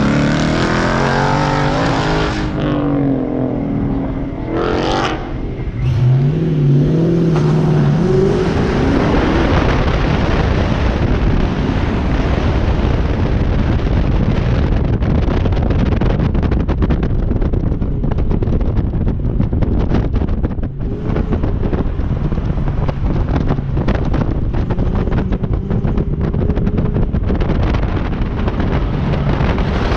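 2001 Ford Mustang GT's 4.6-litre V8 engine pulling hard through an autocross run, its revs climbing sharply about six seconds in as the car sets off, then rising and falling through the course. Heavy wind rush on the outside-mounted microphone.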